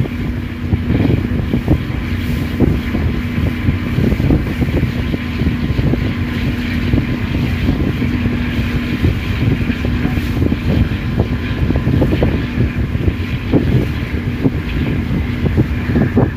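River passenger ship's engine running steadily under way, with wind buffeting the microphone. A steady hum in the engine noise fades out about eleven seconds in.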